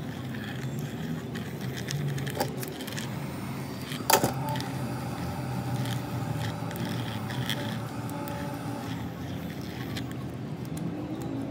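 Thin metal pick scraping and clicking against an iPhone 11's broken back glass and adhesive as the glass is pried away from the housing, with one sharp click about four seconds in, over a steady low hum.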